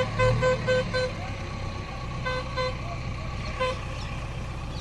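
A vehicle horn sounding in quick short beeps, about four a second for the first second, then a few more about two and a half seconds in and one near four seconds, over a heavy machine's engine running steadily.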